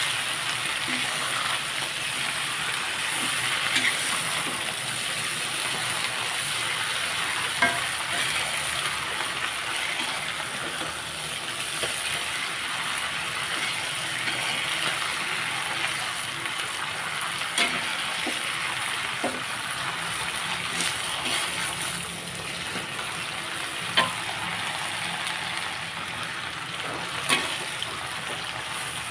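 Water spinach sizzling steadily as it is stir-fried in a metal wok, with a few sharp knocks of the spatula against the pan.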